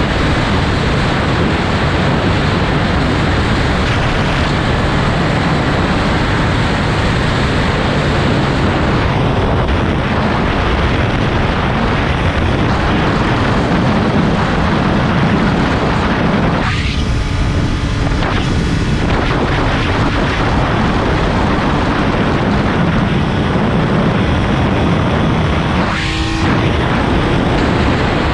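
Heavy wind noise buffeting the microphone of a Triumph Speed Triple 1200 RS at high speed, with the bike's inline three-cylinder engine underneath. The engine note shows through the wind briefly twice in the second half.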